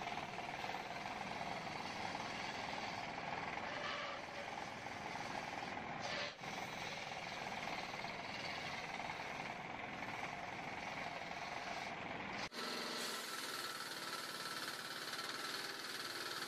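Homemade circular sawmill's blade running and cutting lengthwise through a teak log, a steady dense mechanical noise. It dips briefly about six seconds in. After a sharp break near twelve seconds it runs on more evenly, with less low rumble.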